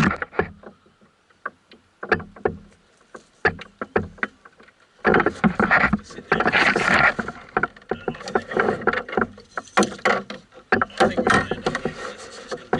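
Irregular knocks, clicks and scuffs of gear being handled in a canoe, with a denser stretch of louder noise a little before the middle.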